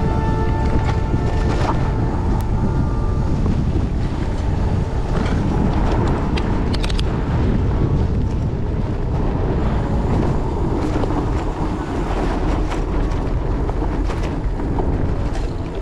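Heavy wind rumble on a camera microphone while riding a fat bike down a rough dirt track, with scattered clicks and rattles from the ride over the ground.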